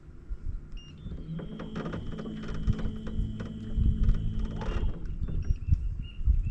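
Bow-mounted electric trolling motor running: a steady hum that starts about a second and a half in and cuts off near five seconds, over irregular low thumps.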